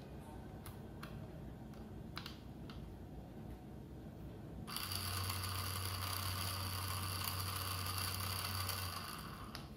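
Small geared DC motor running from a battery with its gearbox open, the bare spur gears whirring with a steady hum and a high whine; it starts about halfway through and stops just before the end. Before it, a few light clicks of small gears and parts being handled.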